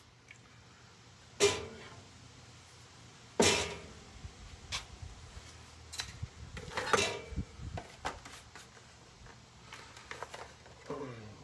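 A wooden block being handled on a bandsaw's metal table: two sharp knocks a couple of seconds apart, the second the loudest, then lighter clunks and clicks, over a low steady hum.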